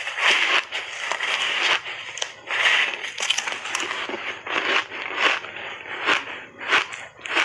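Refrozen block ice coated in matcha powder being bitten and chewed: dense crunching for the first few seconds, then a run of short sharp cracks, about two a second, as the ice breaks between the teeth.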